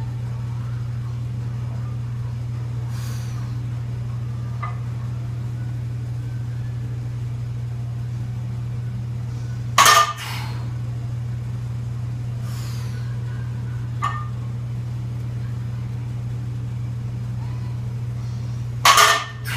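Barbell loaded with 185 lb of bumper plates set down on a rubber floor mat twice, about nine seconds apart, each a loud thud and clank of the plates, over a steady low hum.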